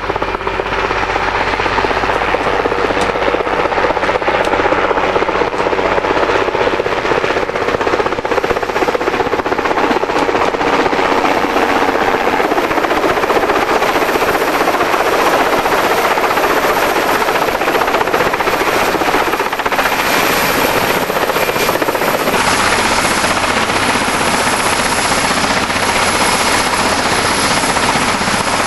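Westland Wessex helicopter's rotor and engines running loud and steady as it flies low overhead and then sets down on a helipad.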